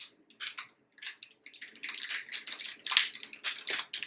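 Plastic sesame seed package crinkling and rustling in the hands as it is being opened, in quick irregular crackles that get busier after the first second or so.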